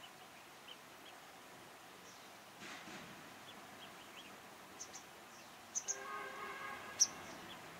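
Faint outdoor ambience with scattered short bird chirps; a few sharper high chirps come near the end, the loudest about seven seconds in, and a short held note sounds about six seconds in.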